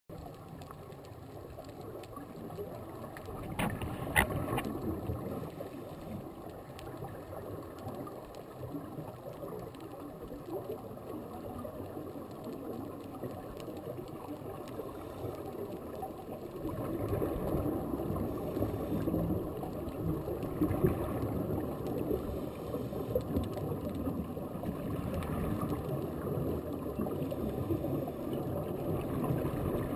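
Underwater ambience heard through the camera: a muffled rushing with fine crackle throughout, a few sharp clicks about four seconds in, and louder from a little past halfway.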